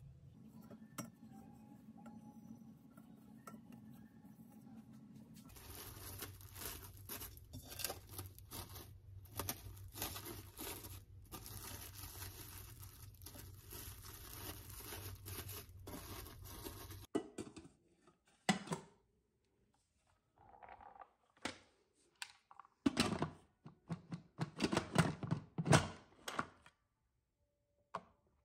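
Plastic cling wrap being pulled, torn and crinkled over a stainless-steel Instant Pot inner pot. It then gives way to scattered knocks and clatter of handling, loudest about two thirds of the way through.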